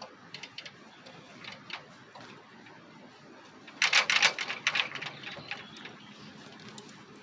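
A series of light clicks, then a loud burst of rapid clattering about four seconds in that lasts about a second and dies away.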